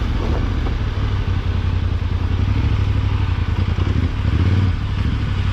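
Yamaha Ténéré 700 World Raid's parallel-twin engine running at low speed as the motorcycle rides a grassy dirt track, briefly louder about four seconds in.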